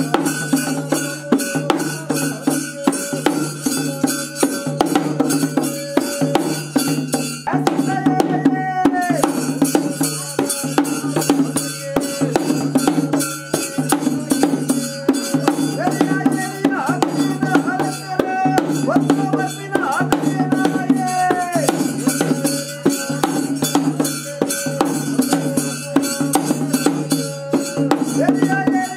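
Bhuta kola ritual music: drums and small cymbals beating a fast, steady rhythm, with a melody that bends and falls over a steady drone.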